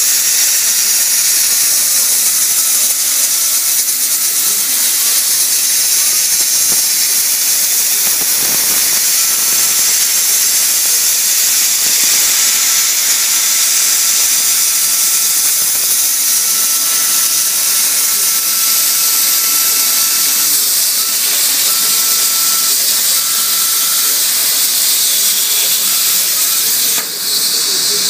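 CNC plasma torch cutting 3 mm steel sheet: a loud, steady hiss of the arc and air jet, with a faint high whine coming and going. The hiss dips briefly near the end and then carries on.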